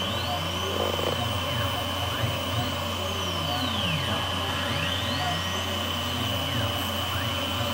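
Tormach PCNC 770 CNC mill milling a circular pocket in a wooden block with a 3/8-inch end mill: the spindle and cutter give a steady high whine over a low hum. Other tones sweep up and down in a repeating pattern as the cutter works around the pocket.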